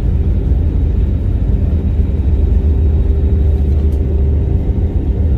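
Airliner cabin noise: a loud, steady low rumble with a steady hum above it.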